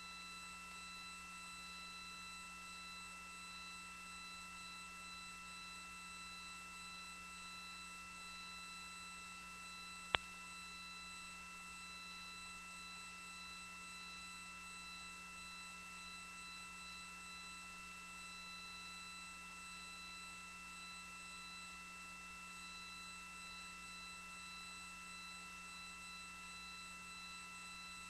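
Faint steady electrical hum with several thin steady whine tones over low hiss on the launch control communications loop between calls, broken once by a single sharp click about ten seconds in.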